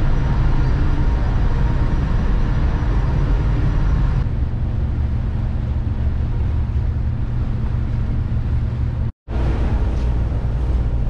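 Passenger car ferry's engines running with a steady low rumble under a hiss of wind and water. About four seconds in the sound turns duller, and it cuts out for a moment about nine seconds in.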